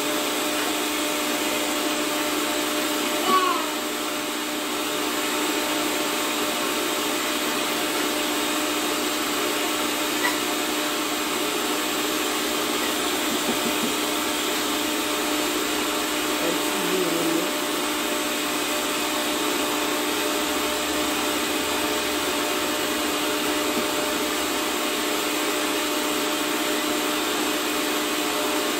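Electric stand mixer running steadily, its beaters whipping a thin milky cream mixture in a plastic bowl, a constant motor whine with a hiss.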